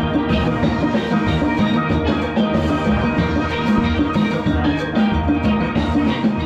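A steel band playing live: many steel pans, from chrome tenor pans to barrel-sized bass pans, struck with sticks, ringing out melody and chords over a steady beat.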